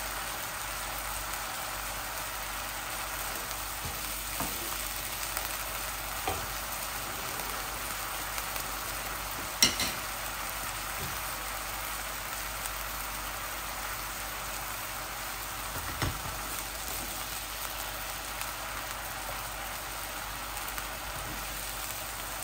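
Diced chicken sizzling steadily as it fries in a little oil in a nonstick wok. A wooden spatula knocks against the pan now and then, with one sharp clink about a third of the way in.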